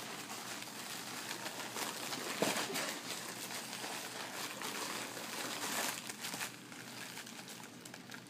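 Plastic packaging bag and gift wrapping crinkling and rustling in irregular bursts as a present is handled and unwrapped.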